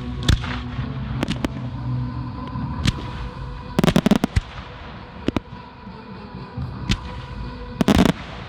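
Fireworks display: shells bursting in sharp single bangs, with two spells of rapid crackling about four and eight seconds in.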